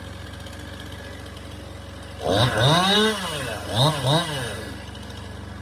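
A chainsaw revved up once and let back down, then blipped twice in quick succession, over a steady engine running in the background.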